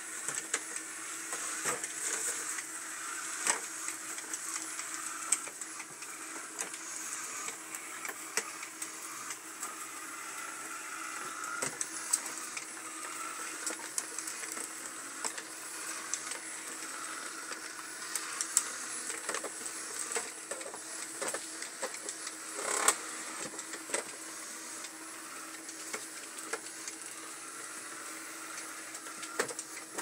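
Robot vacuum cleaner running, a steady motor whir with a high whine, broken by frequent short clicks and knocks, the loudest about 23 seconds in.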